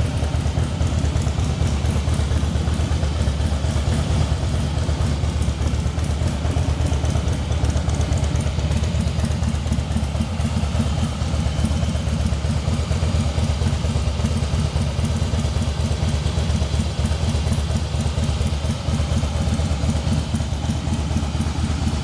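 Harley-Davidson Fat Boy's V-twin engine idling steadily.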